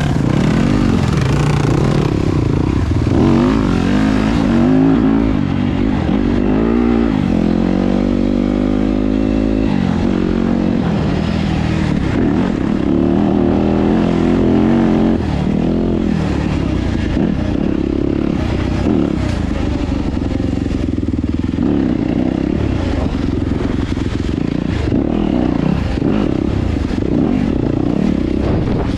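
Yamaha YZ250FX dirt bike's single-cylinder four-stroke engine running under way, revving up and down over and over as the rider works the throttle and gears.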